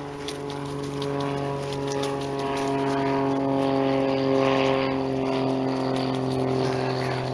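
A steady engine drone, likely from a nearby vehicle or aircraft, with its pitch drifting slightly.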